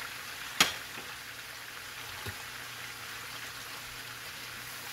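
Sliced turnips, tomatoes and green chillies sizzling in hot oil in a frying pan, a steady soft hiss. One sharp click about half a second in, and a fainter tick a little before the middle.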